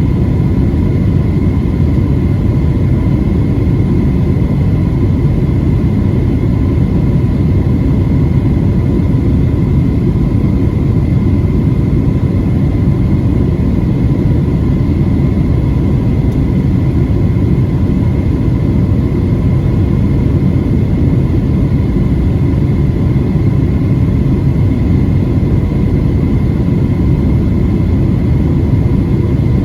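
Steady cabin drone inside a Boeing 737-700 airliner in flight: the sound of its CFM56 turbofan engines and the airflow over the fuselage, with a faint steady whine above it.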